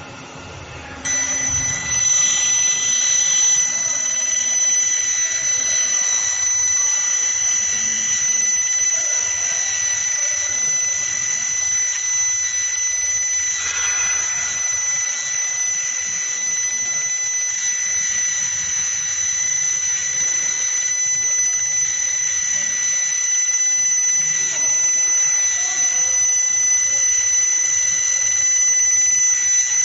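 Fiber laser marking machine marking a copper plate: a steady high-pitched whine made of several tones, over a hiss, starts about a second in and holds without a break.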